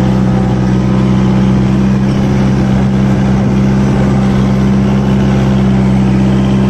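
Kubota MU4501 tractor's four-cylinder diesel engine running at a steady, even speed under load while pulling an 11-tine spring cultivator through the soil.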